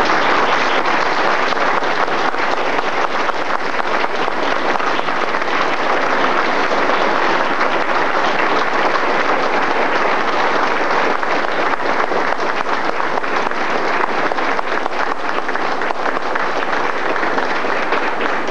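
Audience applauding: many hands clapping together, steady and sustained.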